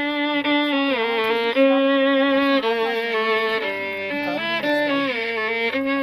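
Violin played with a bow: a melody of held notes, each lasting about half a second to a second, with the pitch stepping up and down.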